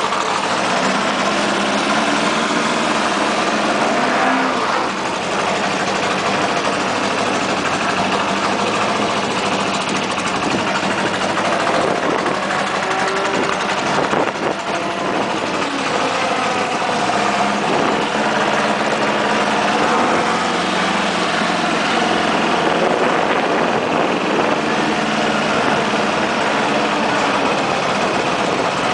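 Engine of a front-engined Formula Junior racing car running at low revs as it is driven slowly, heard close from the car itself, its pitch rising and falling a little with the throttle.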